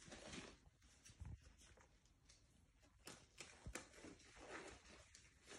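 Near silence, with faint rustles and small snaps of disposable exam gloves being pulled onto the hands.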